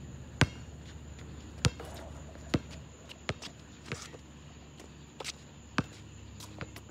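A basketball bouncing on an outdoor asphalt court, sharp thuds roughly once a second, with lighter sneaker footsteps in between.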